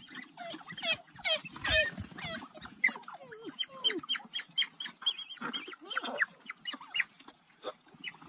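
A pack of African wild dogs (painted wolves), adults and pups, twittering and squeaking in many short, high, overlapping calls, several a second. These are the begging calls of pups crowding adults that have returned to the den to feed them.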